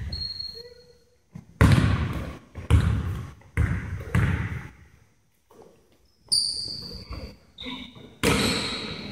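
A basketball bouncing on a hardwood gym floor: several separate bounces at uneven spacing, with a pause around the middle, each ringing on in the hall.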